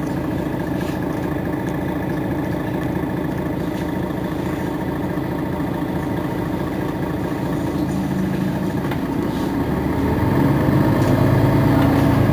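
Mercedes-Benz Citaro G C2 articulated bus engine idling steadily, then its note rises and grows louder from about eight seconds in as the engine revs up.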